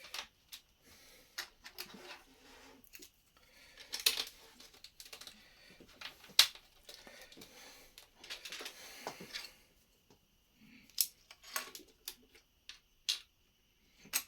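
Plastic Lego pieces clicking and rattling as they are handled and placed. There is a busy stretch of rattling for about the first two-thirds, then a few separate sharp clicks.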